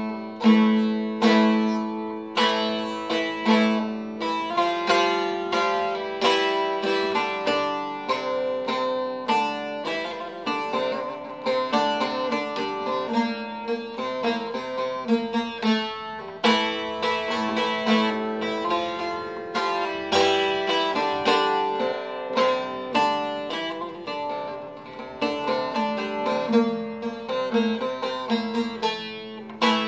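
Instrumental Turkish folk music: plucked string instruments play a quick, busy melody over a held low note, with no singing.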